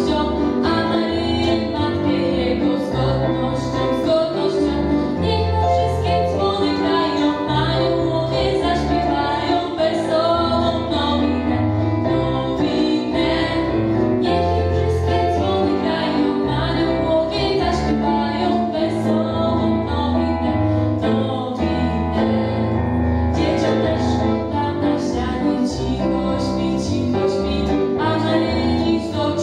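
A girl singing a Polish Christmas carol (kolęda) into a microphone over instrumental accompaniment with bass notes.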